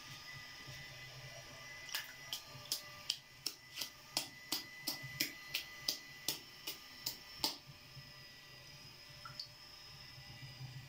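Hand slapping and squeezing a lump of fresh butter over a tub of buttermilk. It makes a quick run of about fifteen sharp, wet slaps, nearly three a second, starting about two seconds in and then stopping.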